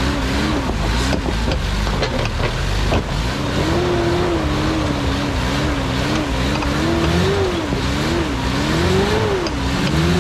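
Rock-crawling rig's engine revving up and down under load as it climbs, with a few sharp knocks in the first three seconds.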